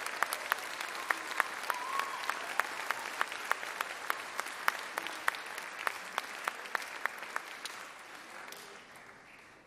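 Audience applauding, with sharp claps about three a second from one close clapper standing out above the rest; the applause dies away over the last two seconds.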